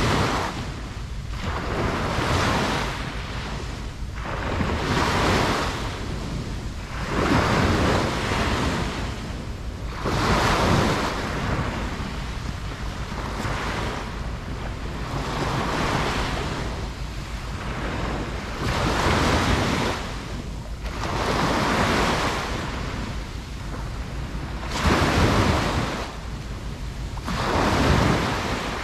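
Ocean waves breaking and washing on a beach, each swell rising and falling every two to three seconds, with some wind noise on the microphone.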